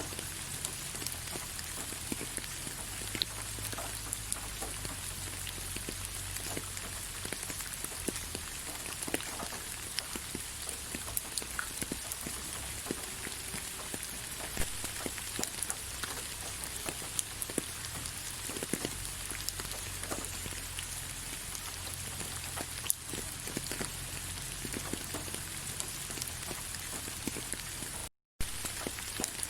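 Rain falling on leaves: a steady patter of many drops with distinct individual drip ticks. The sound cuts out completely for a split second near the end.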